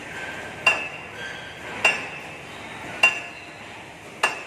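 Hammer striking the steel of a backhoe clamp: four ringing metal blows at an even pace, about one every 1.2 seconds.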